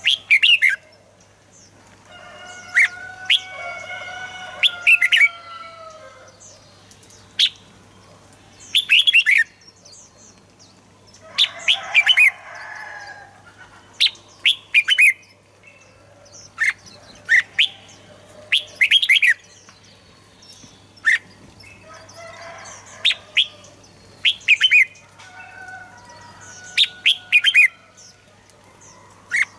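Red-whiskered bulbuls singing: short, quick whistled phrases repeated every second or two. A lower, drawn-out call sounds underneath a few times.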